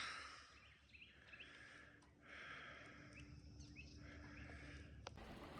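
Near silence: faint outdoor ambience with a few brief bird chirps, and a sharp click near the end.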